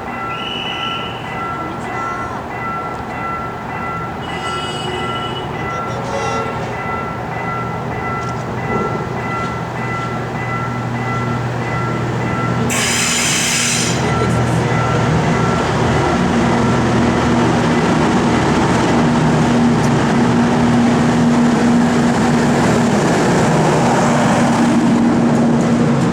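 Railway level-crossing warning bell ringing in a steady repeating pattern as a train approaches. A short, sharp blast comes about 13 seconds in, and then the rumble and hum of the passing train grow louder.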